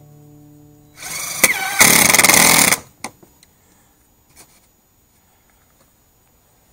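A handheld cordless power tool runs in one burst of about two seconds. Its whine wavers as it spins up, then it buzzes steadily and loudly and cuts off. A few light knocks follow.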